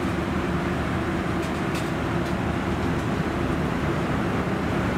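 Steady in-flight cabin drone of a Boeing 737-800 airliner, a constant hum and rush from engines and airflow. A few faint clicks sound over it in the first half.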